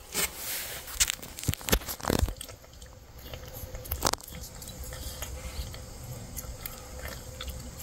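Cats eating wet canned cat food, chewing with irregular wet clicks, most of them in the first couple of seconds and one more about four seconds in.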